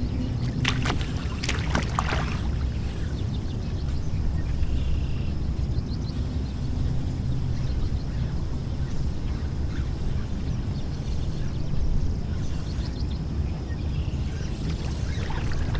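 Steady low outdoor rumble, with a few short sharp clicks in the first two seconds.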